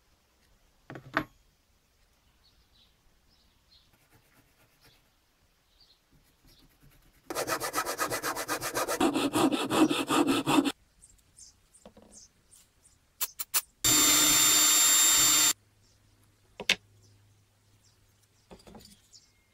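Hand saw cutting a thin wooden strip in quick, even strokes for about three seconds. A few seconds later a cordless drill runs in one steady burst of about a second and a half. Scattered clicks and knocks of small parts being handled come in between.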